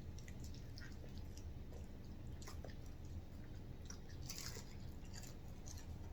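Faint chewing and mouth sounds of people eating chicken and fries: scattered small wet clicks and crunches, the densest cluster about four seconds in, over a low steady hum.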